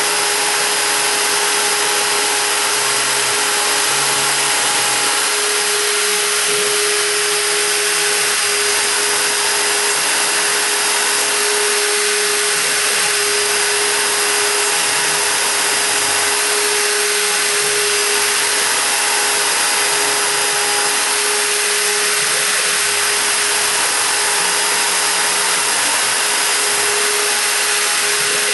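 High-Z S-1000 CNC router's spindle running at about 25,000 rpm, a steady whine over a loud even hiss, as a 0.7 mm engraving bit cuts about 1 mm deep into wood.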